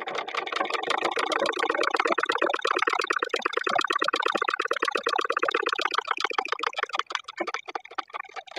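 Domestic sewing machine stitching a seam: a rapid, even clatter of the needle and mechanism that stops near the end. It is a test seam after the bobbin-case tension screw was tightened to cure loose loops, and the stitch comes out properly.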